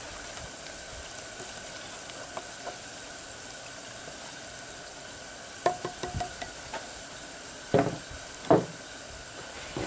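Hot oil sizzling steadily in a deep-fry pot with fries cooking in it. A few light clicks come about halfway through, then two sharp knocks near the end.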